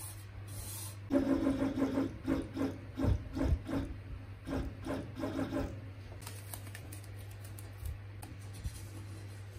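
3D printer's stepper motors moving the print head: a buzzing tone in a string of short runs, starting about a second in and stopping near the six-second mark, over a steady low hum.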